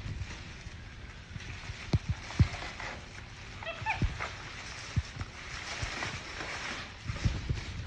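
Plastic carrier bag rustling and crinkling as a raccoon rummages inside it, with a few soft thumps against the wooden table. Brief high chirps sound about four seconds in.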